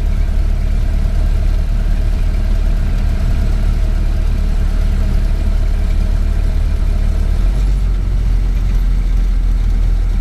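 Ford Model A's four-cylinder flathead engine running steadily while the car is driven. About seven and a half seconds in, the low drone changes pitch.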